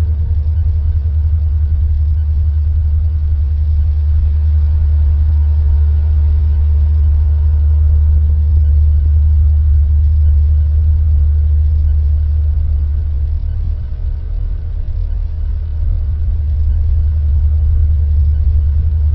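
Synthesized space-ambience drone: a loud, steady deep hum with faint held higher tones above it, easing slightly about two-thirds of the way through.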